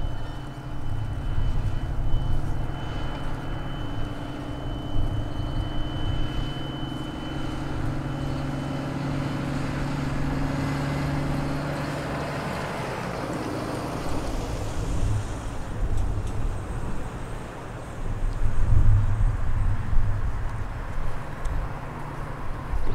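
A motor vehicle engine running steadily for about twelve seconds, then a vehicle passing, over a low rumble of wind on the microphone.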